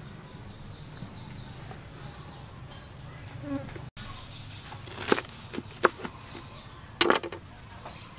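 Knife chopping through a bunch of herb stems onto a plastic cutting board: a few sharp chops in the second half and a quick cluster near the end. Before the chopping, faint insect buzzing in the background.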